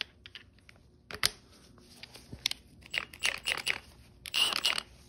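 Clicks and rustling from a gloved hand handling a cordless impact wrench and its socket adapter, several short bursts coming thicker in the second half.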